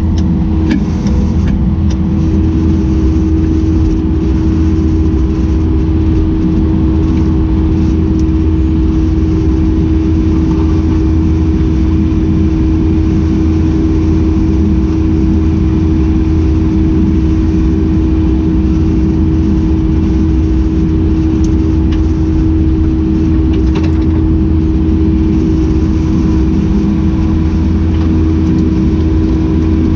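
Kubota SVL75-2 compact track loader's diesel engine running steadily under work, with a constant droning tone over the engine noise.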